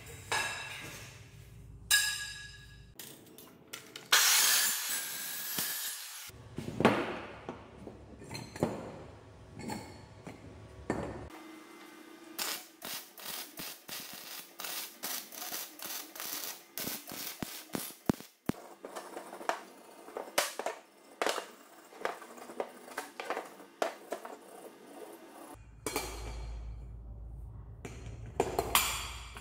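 A run of metal-workshop sounds with abrupt cuts between them: a loud, harsh power-tool cutting noise for about two seconds, then a long stretch of arc-welding crackle over a steady hum through the middle, then clinks and knocks of steel parts and wheels being handled near the end.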